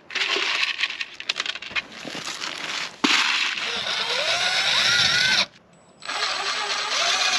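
Small metal screws and plastic caps rattling and clicking as they are sorted by hand. Then a Milwaukee cordless impact driver drives self-tapping screws into thin RV sheet metal: two runs of about two seconds each, the first with a rising whine, with a short pause between them.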